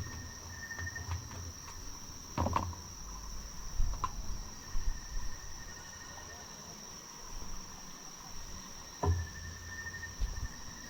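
Crickets or other night insects keeping up a steady high-pitched chirring, with a few short knocks and clatters, three of them spread through the clip.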